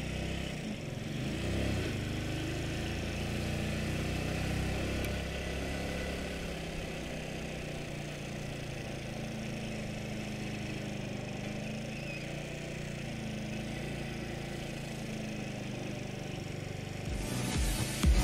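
Motorcycle engine running while riding, picked up through a phone's microphone, its pitch dipping and rising again in the first couple of seconds and then holding steady. Music with a beat starts near the end.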